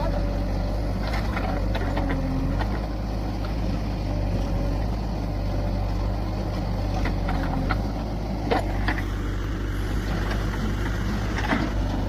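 JCB 3DX backhoe loader's diesel engine running steadily under digging load, with several sharp knocks and clanks from the backhoe bucket and arm working the soil, the loudest a little over eight and a half seconds in.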